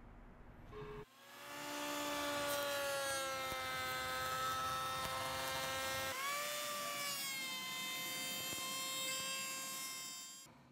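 Router table with a carbide-tipped sash cutter running and cutting a profile along a wood rail: a steady whine that starts about a second in and sinks slowly in pitch, then changes abruptly to a higher steady pitch about six seconds in before stopping near the end.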